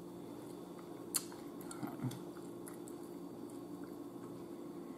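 A person chewing a mouthful of baked fish, faint, with a sharp click about a second in and a few soft mouth sounds around two seconds. A low steady hum runs underneath.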